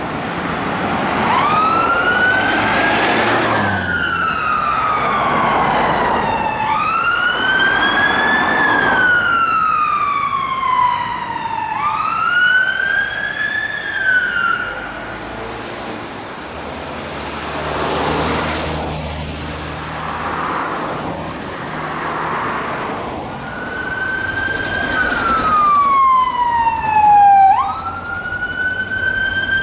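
A fire engine's siren wailing, slow rising and falling sweeps repeating about three times before it dies away. After a stretch of traffic rumble, a police car's siren wails in repeated falling sweeps, loudest near the end.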